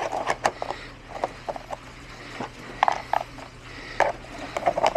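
Irregular clicks, knocks and rattles of a dog's treat puzzle box being handled, its compartments opened and treats dropped in.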